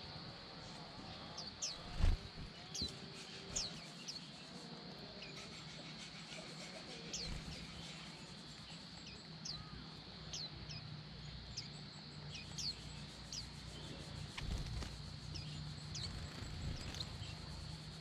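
Small white-eyes calling with short, high chirps scattered throughout, over a steady high-pitched hum. A single dull thump sounds about two seconds in.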